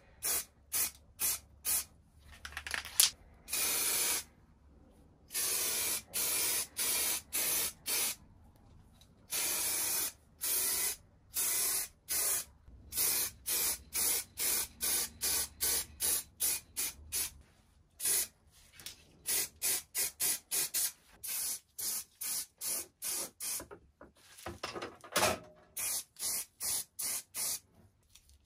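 Aerosol enamel spray paint can hissing in many short bursts, about two a second with brief gaps, some held for a second or so, as coats of paint are sprayed on.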